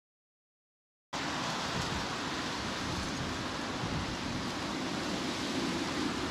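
Dead silence for about the first second, then a steady, even rushing noise.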